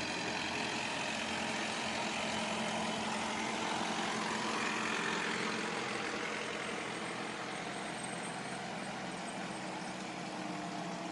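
Off-road 4x4 vehicle engine running steadily at low revs.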